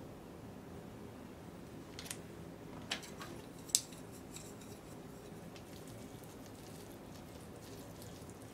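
Thin plastic food tray handled and set down on a metal counter: a few light clicks and knocks, the sharpest about four seconds in, followed by faint scattered ticks as the food is picked at. A low steady hum of room tone sits underneath.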